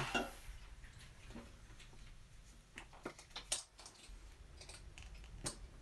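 Faint, scattered clicks and light knocks from hands working under a raised motorcycle fuel tank, unplugging its fuel hoses and small electrical connector. The sharpest clicks come at the very start, about three and a half seconds in, and near the end.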